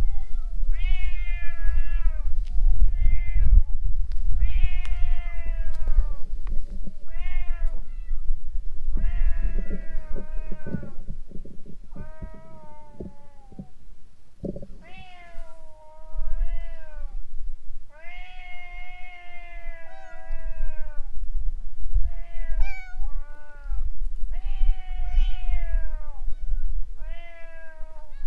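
Stray cats meowing over and over, a long run of drawn-out meows that rise and then fall in pitch, one every second or two and some held for about two seconds, over a low rumble.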